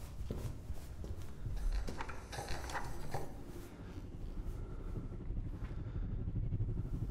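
A steady low hum, with a few soft clicks and rustles about two to three seconds in.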